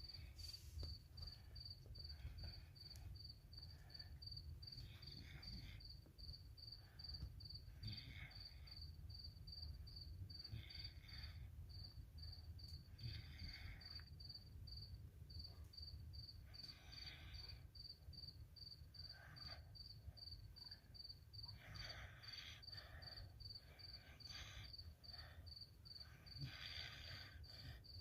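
A sleeping puppy snoring faintly, one soft, breathy snore every two to three seconds.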